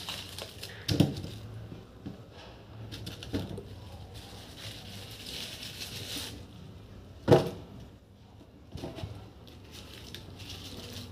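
Thin plastic grocery bags rustling and crinkling as a hand rummages in a fabric shopping bag, with a few short knocks against the counter, the loudest about seven seconds in.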